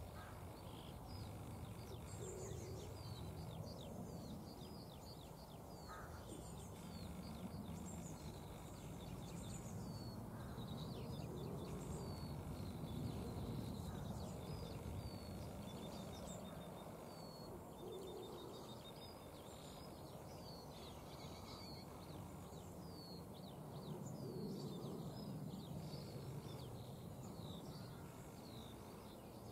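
Many small birds chirping and twittering, with a quick rapid trill twice about halfway through, over a faint low rumble that swells and fades.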